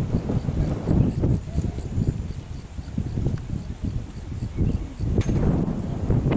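An insect chirping in a steady high pulse, about five chirps a second, over a louder uneven low rumble, with one sharp click about five seconds in.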